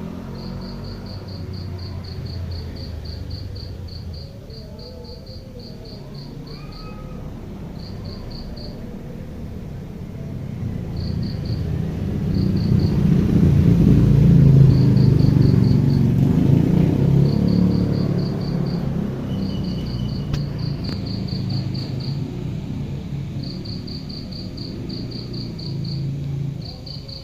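Crickets chirping in repeated short trains of rapid, high-pitched pulses, over a low rumble that swells to its loudest about halfway through and then eases off.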